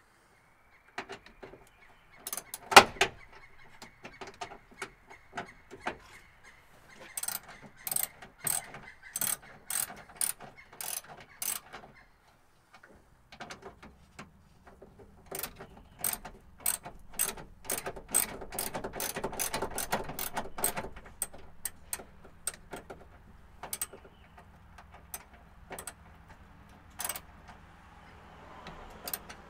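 Ratchet wrench clicking in runs of strokes, about two to three clicks a second, working a bolt on the truck's starter assembly, with a sharp metal knock about three seconds in.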